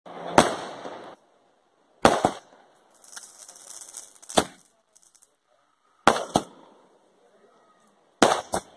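Firecrackers set off on the ground, sharp bangs every two seconds or so, most in quick pairs, with a short hiss between them around three to four seconds in.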